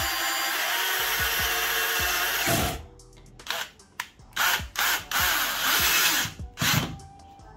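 Black & Decker Multi EVO 18V cordless drill/driver driving screws. It runs steadily for about two and a half seconds, then after a short pause comes on in several short trigger bursts as a screw is driven into wood.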